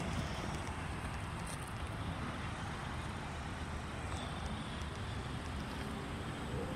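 Road traffic passing: a truck's rumble eases off in the first second, then steady car and tyre noise with wind on the microphone.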